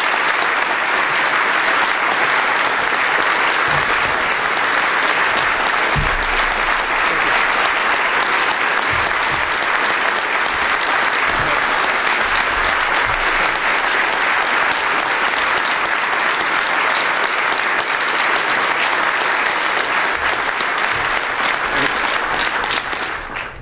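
An audience applauding steadily and loudly, dying down right at the end.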